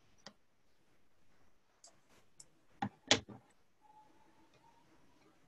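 A few faint scattered clicks and taps, with two louder knocks close together about three seconds in, followed by a faint thin tone lasting about a second.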